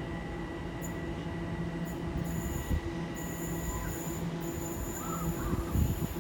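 London Overground class 378 electric train running at the platform: a steady low electrical hum that cuts in and out over a rail rumble, with a thin high whine and a couple of thuds.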